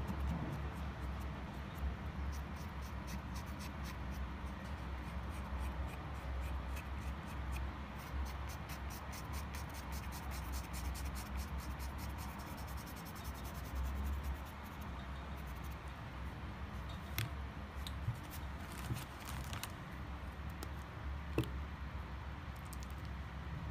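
Felt tip of an acrylic paint marker scratching across a rough stone in quick, rapidly repeated strokes, laying down red paint. A few sharp clicks follow near the end, over a steady low hum.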